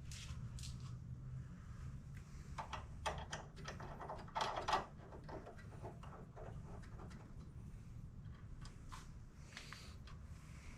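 Scattered light metallic clicks and clatters of bolts, washers and hand tools being handled during hand-fitting of car suspension parts, over a low steady hum. A cluster of clinks comes a few seconds in.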